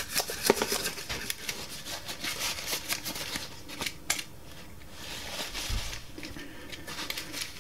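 Small brush scrubbing a toy's plastic-and-metal gear mechanism in a plastic tub to clean off battery residue: scratchy brushing with many light clicks and knocks against the parts and tub. Toward the middle, a paper towel rubs over the mechanism.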